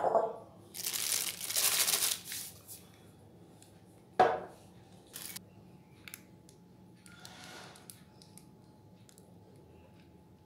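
Plastic piping bag full of cookie dough crinkling as it is handled, loudest for about a second and a half near the start, with sudden knocks at the start and about four seconds in and a short sharp crackle soon after. A fainter rustle of the bag follows as the dough is squeezed out.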